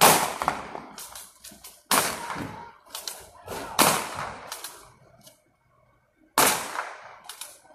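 Several loud, sharp bangs over the street, each ringing out briefly. The first is the loudest, with more about two, four and six and a half seconds in.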